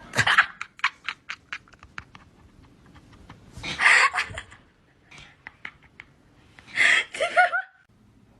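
A person laughing in short bursts: quick breathy snickers, then two louder outbursts.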